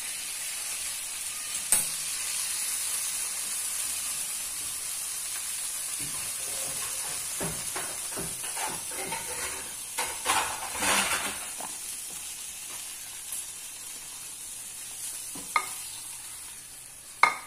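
Roast beef and its pan juices sizzling steadily in a hot terracotta dish, with a fork scraping and clicking against the meat and the clay, a few times early and near the end and in a busy run through the middle.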